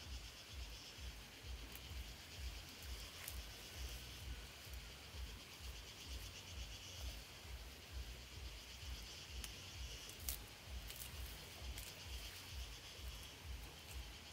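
Insects chirring steadily in a high, even drone, over a low pulsing rumble, with a few faint clicks, the sharpest about ten seconds in.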